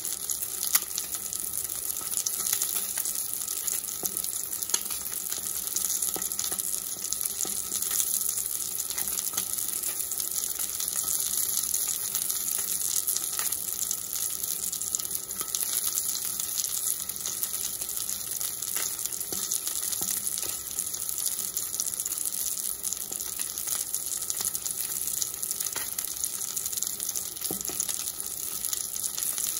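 Salmon fillet frying in hot oil in a cast-iron skillet: a steady sizzle dotted with small crackles and pops of spitting oil.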